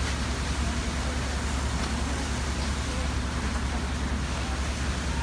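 Steady low drone of a fire apparatus diesel engine running at pump speed, with a steady hiss over it.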